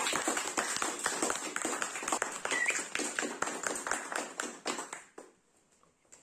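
Applause, a dense patter of many hands clapping that dies away about five seconds in.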